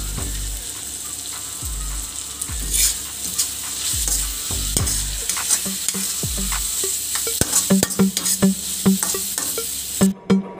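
Onions, tomatoes and chillies sizzling in hot oil in a metal kadai while being stirred, with a steady hiss and frequent sharp clicks of the spatula scraping and knocking the pan. Near the end the sizzling cuts off suddenly.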